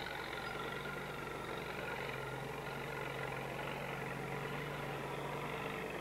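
Farm tractor engine running steadily at an unchanging pitch.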